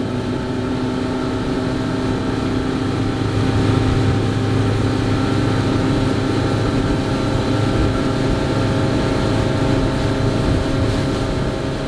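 A fishing boat's engine running steadily under way, a constant hum of several tones, with the rush of wind and water passing the hull.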